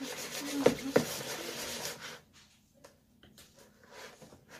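Utensil stirring wet slime mixture in a plastic bowl: a wet scraping and squishing with two sharp knocks about a second in. It goes quiet about two seconds in.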